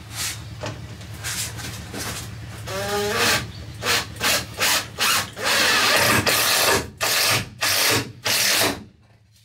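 Cordless drill driving a self-drilling screw through a wooden batten into the van's sheet-metal wall. The motor spins up with a rising whine about three seconds in, then runs in a string of short trigger bursts and one longer run of about a second, and cuts off near the end.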